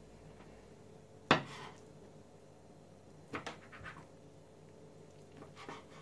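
Kitchen knife cutting through a rolled yufka pastry roll, the blade knocking on the tabletop: one sharp knock about a second in, then a few lighter taps and clicks later.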